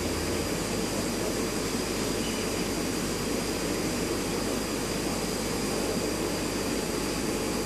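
Steady hum and rush of an aquarium air pump with the sponge filter bubbling, unchanging throughout.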